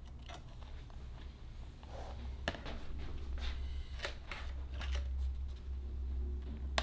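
Small metal clicks and handling rustles as spring-loaded alligator clips are fastened onto wire and an iron anode at a plastic tub, over a steady low hum. A sharp click comes about two and a half seconds in and a louder one at the very end.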